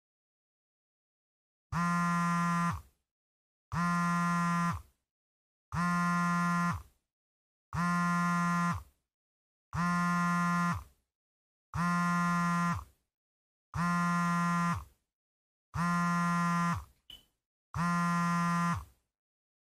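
Smartphone buzzing for an incoming call: a steady low buzz about a second long, repeating every two seconds, nine times.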